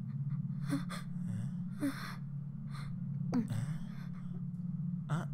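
A person gasping and breathing hard in fright, several short sharp breaths spaced about a second apart, over a low steady hum.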